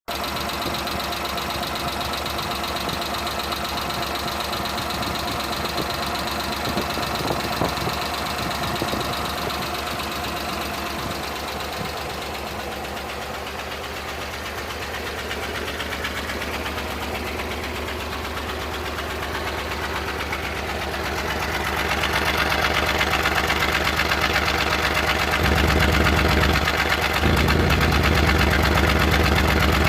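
Suzuki F6A three-cylinder engine idling while it is checked for a random misfire. It gets louder about two-thirds of the way through.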